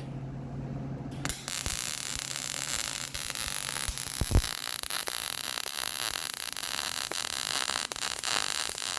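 MIG welding arc from a Power MIG 255C, striking about a second in and then crackling and sizzling steadily as a second bead pass is run. Before the arc, a steady low hum from the welder, and a low thump partway through.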